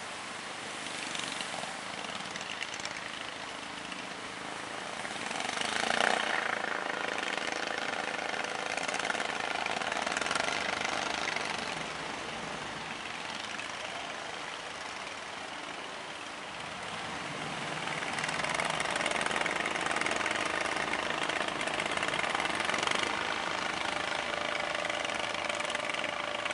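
Fishing boat engines running, with the wash of waves around the boats. The engine sound swells about six seconds in and grows louder again from about two-thirds of the way through.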